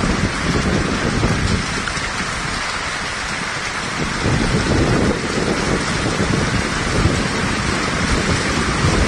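Heavy monsoon rain pouring steadily, with a gusty low rumble of wind on the microphone that eases for a moment about two to four seconds in.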